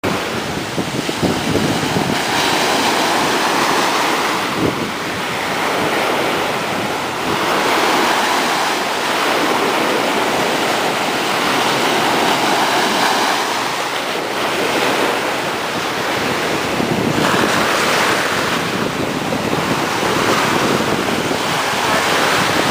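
Ocean surf breaking in the shallows, a continuous wash that swells and eases every few seconds, with wind buffeting the microphone.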